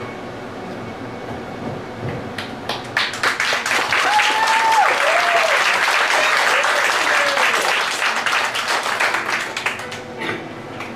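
Congregation applauding: scattered claps begin about two seconds in, build into full steady applause with a voice calling out briefly around four seconds in, then thin out near the end.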